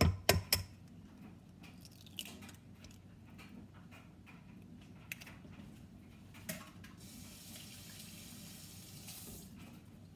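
An egg cracked against the rim of a stainless steel mixing bowl: a few sharp taps right at the start. About seven seconds in, a kitchen tap runs as a steady hiss for about two seconds, then stops.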